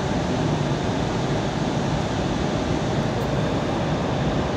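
Steady cabin noise inside an Airbus A320 in flight: an even rush of engines and airflow, heavy in the low end, with no change.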